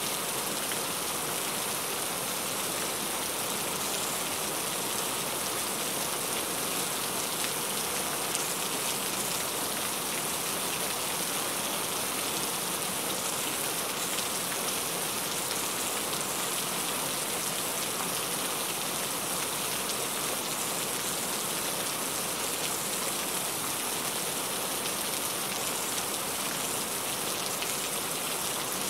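Heavy rain falling steadily: a dense, even hiss that does not let up.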